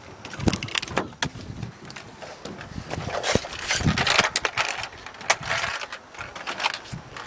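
Irregular rustling, with scattered knocks and clicks, from people moving about on foot.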